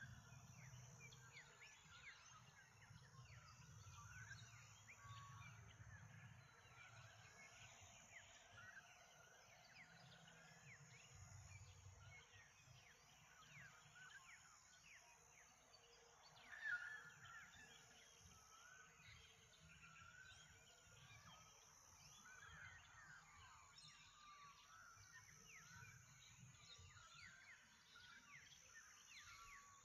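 Faint chorus of morning birds, many small chirps and short calls overlapping, with one louder call a little past halfway. A low rumble runs underneath.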